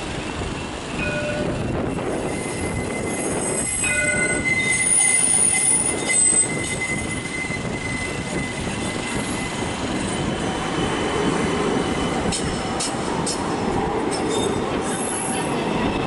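Kaohsiung Light Rail CAF tram pulling out and rounding a curve: its wheels squeal in thin, high, steady tones around four to six seconds in. Its running noise then swells as it passes close, with a few sharp clicks near the end. Two short chime-like tones sound about one second and four seconds in.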